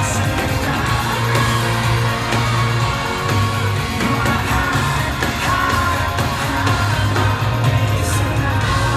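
Pop-rock song playing, with singing over a heavy bass line.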